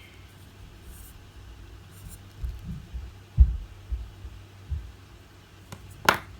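A few low, dull thumps, the loudest about three and a half seconds in, over a steady low hum, then a sharp click near the end: handling noise as plastic toy capsules and figures are knocked and set down.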